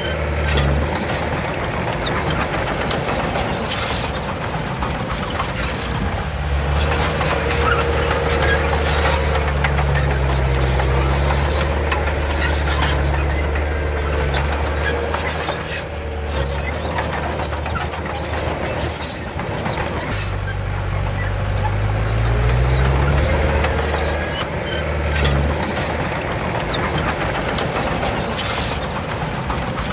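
Komatsu D31 bulldozer working, its diesel engine running under changing load, the pitch shifting several times and climbing about two-thirds of the way through, with a steady squeal above it.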